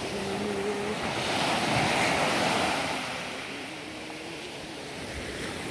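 Small Black Sea waves washing onto a sandy beach. One wash swells up about a second in and fades back after about three seconds.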